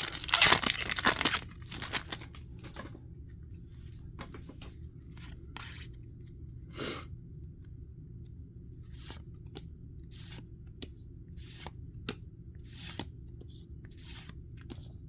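Foil Pokémon booster pack being torn open, a loud ripping over the first second and a half. Then come scattered soft flicks and rustles as the cards are handled and looked through.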